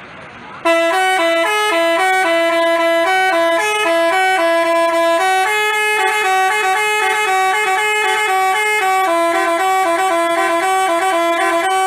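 Basuri telolet bus horn playing a quick melody of stepped, held notes, mostly two notes sounding together, starting just under a second in.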